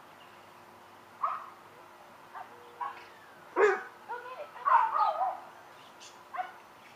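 A young dog barking and yipping excitedly during play: a handful of short, sharp calls, loudest about three and a half seconds in, followed by a run of quick, whiny yelps.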